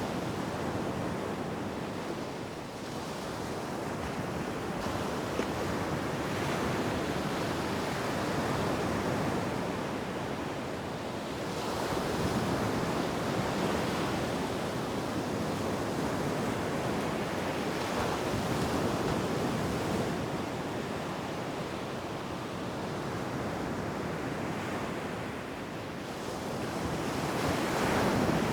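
Ocean surf washing onto a beach, waves swelling and receding every several seconds, with a steady wind rush behind.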